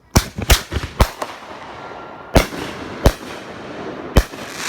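Multi-break aerial firework shells fired from a mortar tube, going off as a volley of sharp explosive bangs: four in quick succession within the first second, then three more single booms spaced roughly a second apart as the breaks burst in the air.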